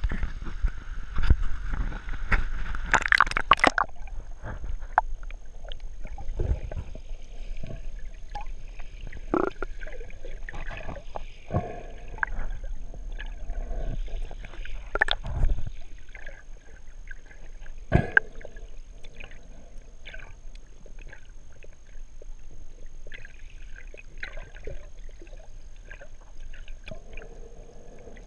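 Muffled water sounds picked up by a GoPro in its waterproof housing, at the surface and then underwater. There is a burst of splashing about three seconds in, then a low steady rumble of water with scattered clicks and knocks.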